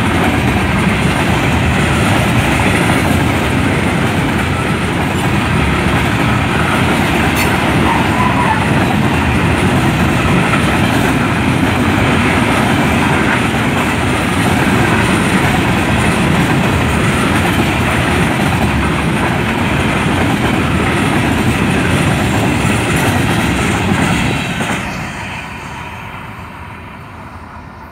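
Freight train of open-top gondola cars rolling past close by, steel wheels running on the rails with a steady, loud noise. About 24 seconds in the last car goes by and the sound fades as the train moves away.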